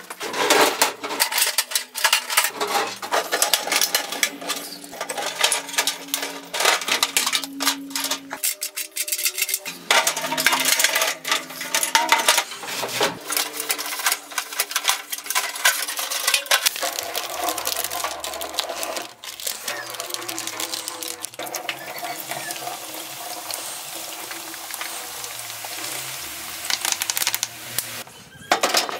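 Clanking and rattling of a rusty steel cantilever tool box being handled, with many sharp metal knocks as its fold-out trays are moved.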